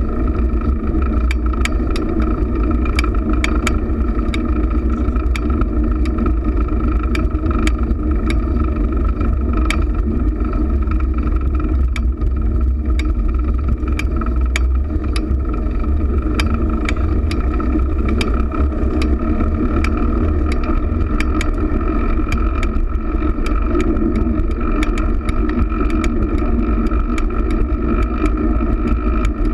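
Riding noise from a camera mounted on a moving fixed-gear bicycle: a steady rumble of wind and tyres on asphalt, with frequent small clicks and rattles from the bike.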